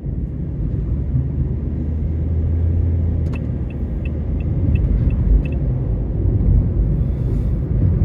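Car driving, heard from inside: a steady low road and engine rumble. About a third of the way in, a run of light, evenly spaced ticks, about three a second, lasts a couple of seconds.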